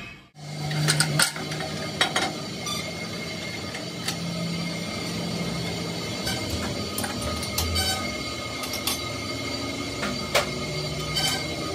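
Scattered metal clanks and knocks as a heavy steel truck drive shaft is set into a large lathe chuck, over a low hum that comes and goes.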